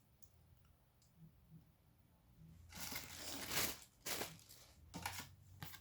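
Packaging crinkling and rustling as the kit's contents are handled, starting about halfway in with one longer burst and then a few short ones.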